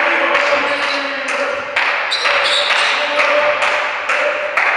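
Sharp impacts of a volleyball being struck or bouncing, ringing through a large sports hall over a steady, noisy din. A few hard strokes stand out: one at the start, one about two seconds in and one near the end.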